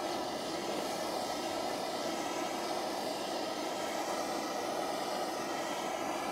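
Hand-held gas torch burning with a steady rushing hiss, played on the main-burner branch forks and vaporizer of a 1910 Stanley Steamer to preheat them so the kerosene will vaporize.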